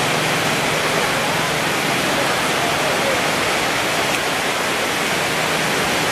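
Steady market hubbub: a dense, even wash of noise with indistinct voices blended into it.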